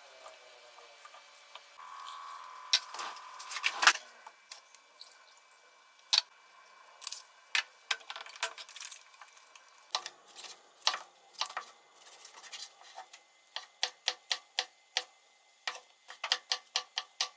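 Kitchen prep sounds. Red onion slices and a clip-top glass jar are handled, with scattered clicks as the jar's lid is closed. Through the second half a knife cuts shiitake mushrooms on a wooden cutting board, in a run of sharp taps at about three a second.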